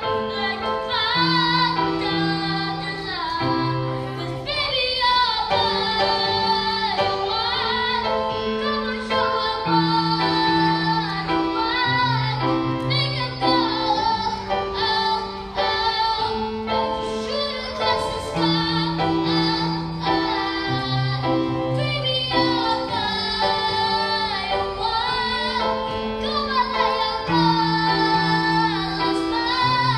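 A song playing: a singing voice carries the melody over a low bass and chord pattern that repeats every several seconds.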